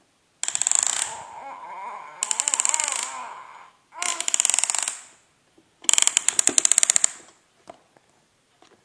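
A young child coughing in four fits, each a rapid rattling string of coughs about a second long.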